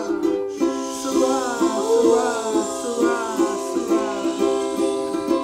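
Ukulele strummed in an even rhythm of chords.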